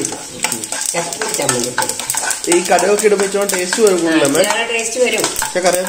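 Steel spoon stirring and scraping dried red chillies and mustard seeds in a non-stick kadai, with a light sizzle of the oil tempering and many short clicks of the spoon on the pan. A voice talks over it.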